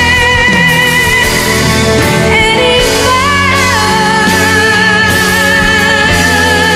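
A female pop singer holds a long, high belted note with vibrato over a full band backing. About two seconds in she breaks into a quick run of notes, then settles on another sustained note.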